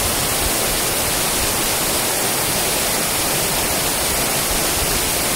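Waterfall heard from about five or six metres from where it lands: a steady rush of falling, splashing water.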